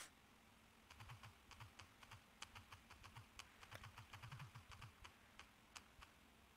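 Faint, rapid tapping from typing on a smartphone's on-screen keyboard. The run of taps starts about a second in and dies away by about five seconds in.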